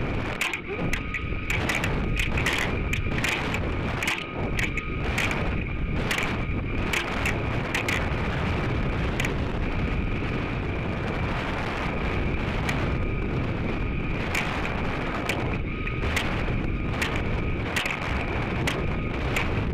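Wind noise on the Stiga rocket's onboard microphone as it descends. It is a steady rush with a thin high whine, broken by frequent irregular clicks and rattles.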